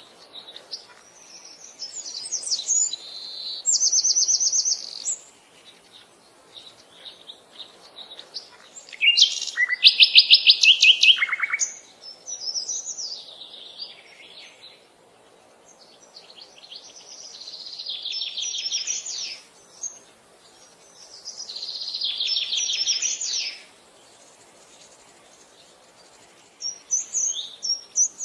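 Songbirds singing: a series of fast trilled phrases a few seconds apart, the loudest about ten seconds in, with short chirps near the end.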